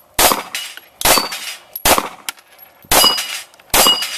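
Pistol shots fired at a steady pace, five in about four seconds, about one a second, at steel plate targets in a timed string. Each shot is followed by a fainter sharp ping as the steel plate is struck.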